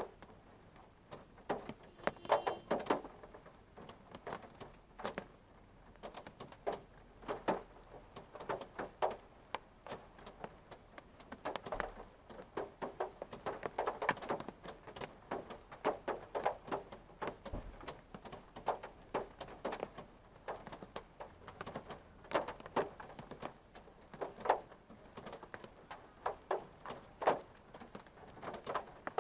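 Raindrops tapping irregularly on a parked car, heard from inside the cabin, several drops a second with some louder ones.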